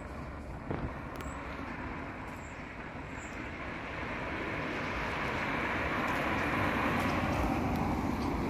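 Road traffic: a passing car's tyre and engine noise, swelling up about halfway through and staying up near the end.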